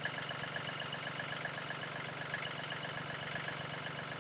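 Yanmar compact tractor's diesel engine idling steadily with an even, rapid beat.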